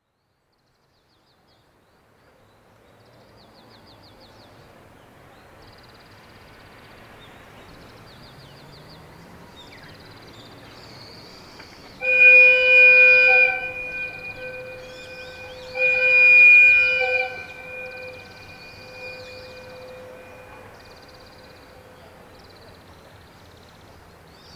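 Railway whistle sounded in two long blasts, a few seconds apart: a steady chord of several notes, each blast dying away in a long echo across the valley.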